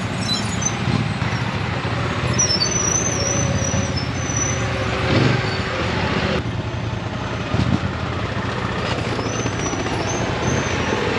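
ATV engines running at low throttle as quads crawl one after another down a rutted, muddy trail. One passes close by, with a brief rise in engine noise about five seconds in. A thin high squeal comes and goes twice.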